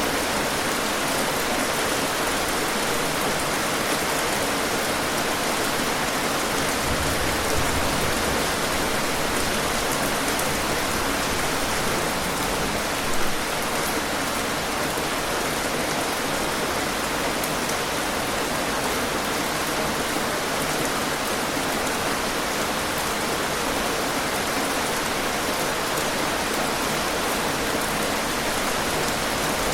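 Steady heavy rain falling, an even hiss of countless drops that does not change, with one brief louder moment about halfway through.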